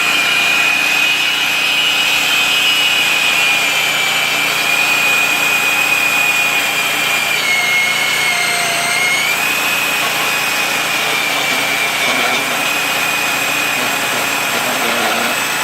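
Harbor Freight portable band saw cutting through quarter-inch steel: a loud, steady whine from the blade and motor, whose pitch sags briefly about eight seconds in, then steadies again.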